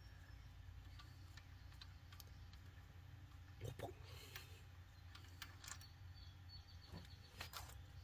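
Faint, scattered metallic clicks and light taps from hands working a high-pressure fuel pump and tools on an opened-up engine, over a low steady hum.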